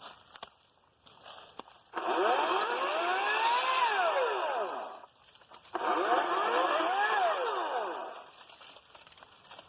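Ryobi 40V 14-inch battery chainsaw pulsed twice. Each time the motor and chain whine up in pitch and then wind down again when the trigger is released. A few light knocks come before the first pulse.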